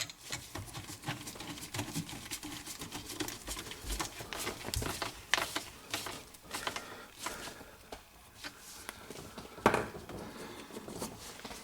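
Irregular small clicks, taps and rustles of hands and hardware as a dishwasher drain hose is fitted onto a garbage disposal's inlet under a sink, with one sharper knock just under ten seconds in.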